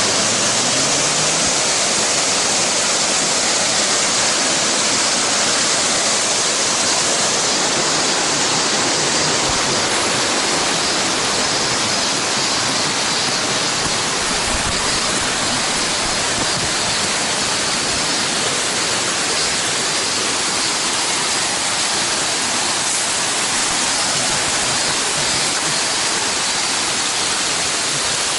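Chōon Falls waterfall rushing with a steady, even hiss of falling water.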